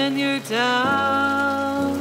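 A keyboard plays slow held piano chords while a singer's voice slides up twice without words, holding the second note for about a second.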